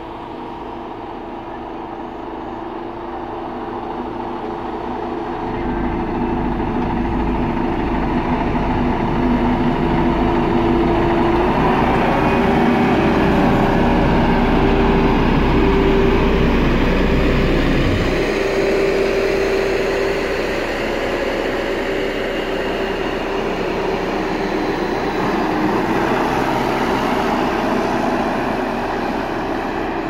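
Diesel engine of a JCB single-drum road roller running steadily as it drives past, growing louder to a peak around the middle and then easing off. A deep rumble underneath stops suddenly a little over halfway through.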